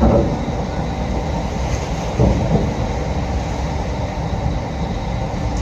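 Steady low rumble aboard a ferry as it crosses rough sea, with louder surges right at the start and again about two seconds in.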